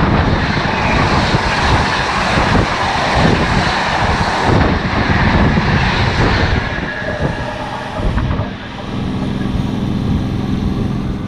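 Howrah–New Delhi Rajdhani Express's LHB coaches passing at close range on the adjacent track: a loud rush of air with rapid wheel clatter. The noise drops off about seven seconds in, once the train's end power car has gone by.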